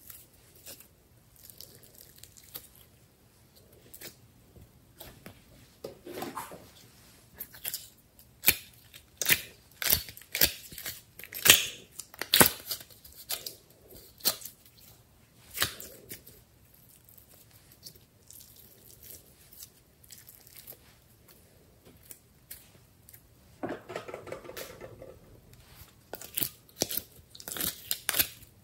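Slime being stretched and worked by hand, with plastic containers handled as material is scooped out of them: a string of sharp sticky clicks and crackles, densest about eight to sixteen seconds in and again near the end.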